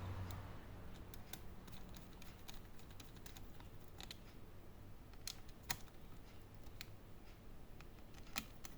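Scattered small clicks and taps of laptop parts and screws being handled during reassembly, with two sharper clicks, one in the middle and one near the end.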